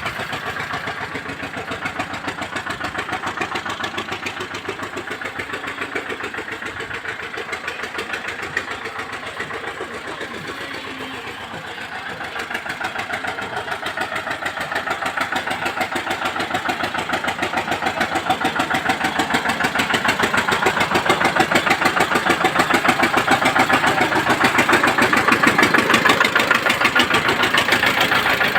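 An engine running with a steady, rapid, even beat, growing louder over the second half.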